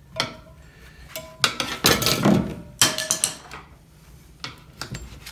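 Metal tyre irons clanking against a motorcycle wheel rim and against each other: a series of sharp clinks with brief metallic ringing, coming in clusters.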